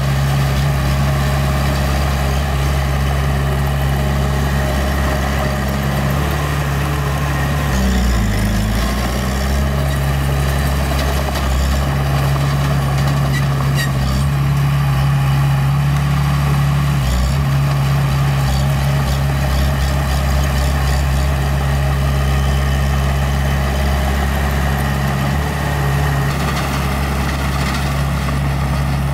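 Heavy construction machinery's diesel engine running steadily with a low hum. Its pitch dips and comes back up about eight seconds in, and wobbles briefly again near the middle.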